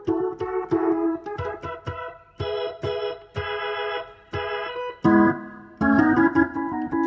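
Yamaha PSR-S970 arranger keyboard playing short chords and notes as one built-in voice is tried out. The sound changes about five seconds in, when a different, brighter voice comes in.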